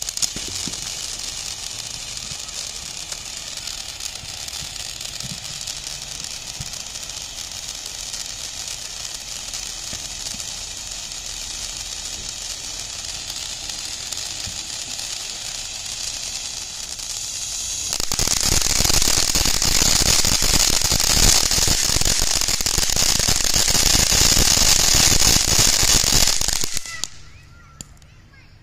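TNT Fireworks Eternal Eruption ground fountain hissing steadily as it sprays sparks. About eighteen seconds in it turns louder and crackles, then it cuts off abruptly near the end as the fountain burns out.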